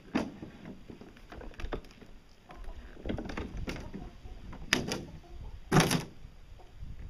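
Fiberglass boat hull shell being handled and set against another hull: a series of knocks and scrapes, the loudest a heavier bump about six seconds in.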